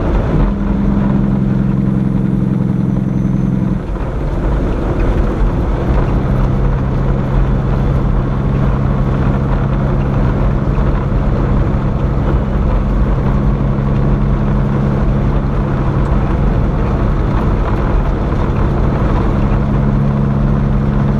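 Tractor-trailer's diesel engine running steadily at highway speed, with road rumble, as heard inside the cab. Its steady hum breaks off about four seconds in and comes back a little higher a couple of seconds later.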